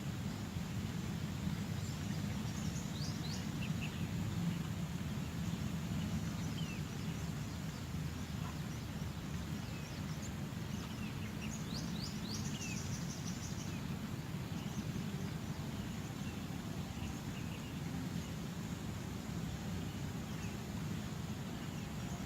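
Outdoor ambience: a steady low rumble, with small birds chirping now and then in short high calls, a few in a cluster a few seconds in and more around the middle.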